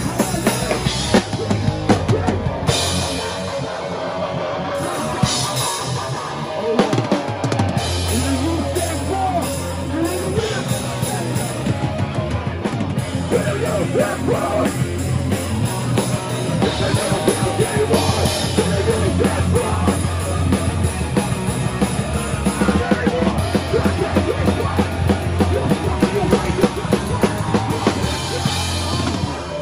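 Live hardcore punk band playing loud, with pounding drums and crashing cymbals, distorted guitars and a heavy bass line. The music breaks off right at the end.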